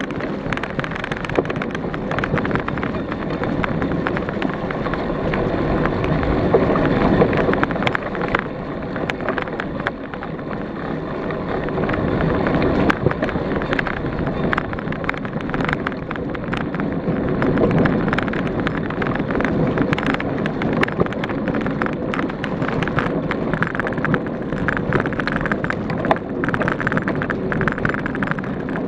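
Trek Elite 8.6 cross-country mountain bike ridden over bumpy grass and leaves, heard from a camera mounted on the bike: wind rushing over the microphone, tyres rolling, and frequent clicks and rattles from the bike over the bumps.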